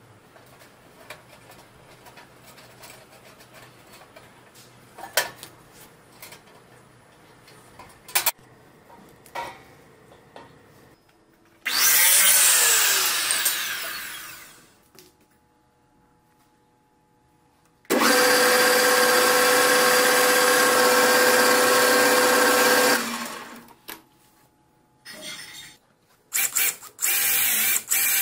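Light clicks and knocks of sheet-metal parts and screws being fitted. About twelve seconds in, a mitre saw runs briefly and winds down with a falling whine. A power tool then runs steadily for about five seconds, and near the end an electric drill bores into wood in short stop-start bursts.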